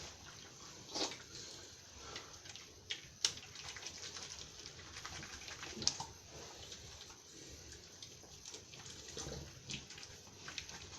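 Wet, soapy hands rubbed together to work up a lather, giving faint squishy rubbing with scattered small wet clicks.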